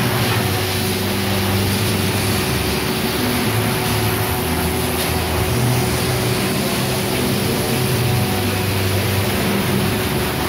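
Sheep-shearing handpiece on an overhead drive, running steadily as it cuts through a sheep's fleece: a continuous mechanical hum and buzz with a low drone that shifts slightly in pitch now and then.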